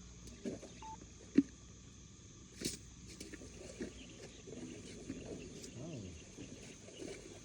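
Steady outdoor insect drone, with a sharp click about a second and a half in and another near three seconds. Faint distant murmuring runs through the second half.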